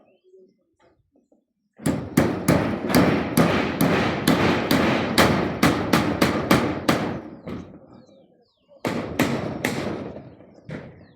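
Rapid hammering, about three blows a second for several seconds, then a short pause and a few more blows.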